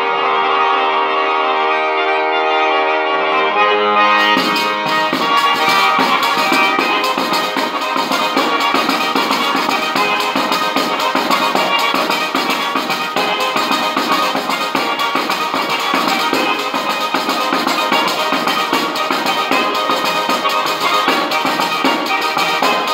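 Calabrian tarantella on a diatonic button accordion (organetto) and a large jingled frame drum (tamburello). The accordion opens alone holding sustained chords, then about four seconds in the tamburello joins with a fast, driving beat and jingling, and the two play on together.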